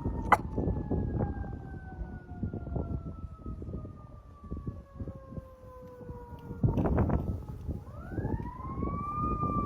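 A siren wailing: one long tone sliding slowly downward, then climbing again about eight seconds in, over rough low background noise.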